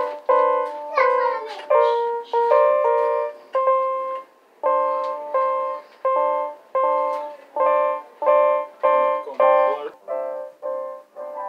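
Electronic keyboard sounding a steady run of piano-like notes, about two a second. About ten seconds in, a softer, busier melody takes over.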